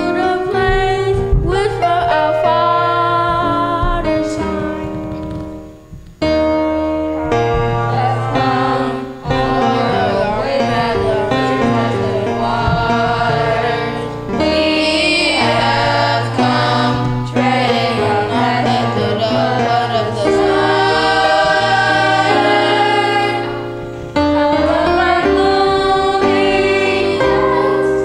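Children's choir singing a song with instrumental accompaniment under it, with a brief pause about six seconds in.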